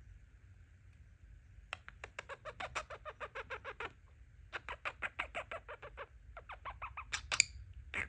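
Pet budgerigar chattering: three quick runs of short, clicky chirps at about seven a second, starting a couple of seconds in, then two louder, sharper chirps near the end.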